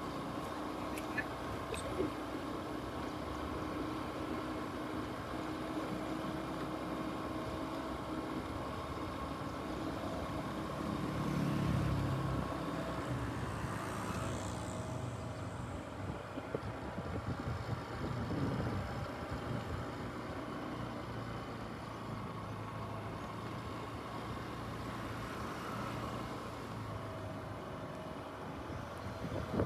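Motorcycle engine running steadily on the move, with road and wind noise; a louder low rumble swells briefly about a third of the way in.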